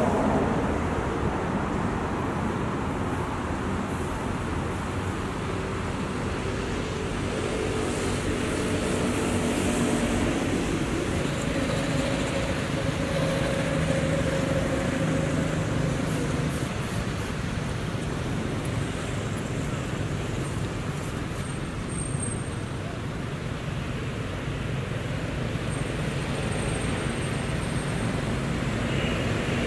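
Steady outdoor background rumble with no distinct sound events.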